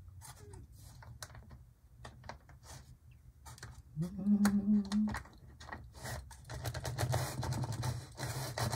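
Light clicks and scraping of a plastic HO-scale model locomotive being handled and pushed along the track rails, denser near the end. A brief low hum about four seconds in.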